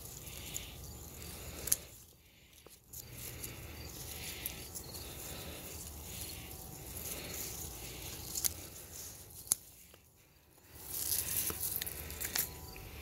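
Scissors snipping basil stems, a few sharp clicks, with the leaves rustling as the cut sprigs are handled, loudest near the end. Crickets chirp in a soft repeating rhythm behind.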